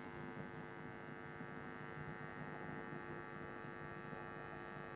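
Faint, steady electrical hum and buzz, unchanging throughout.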